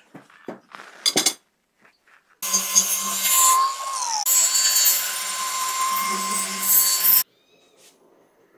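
A few short knocks, then an electric power tool running with a steady whine and a hiss for about five seconds. Partway through its pitch drops, the sound breaks off abruptly and starts again, then it stops suddenly.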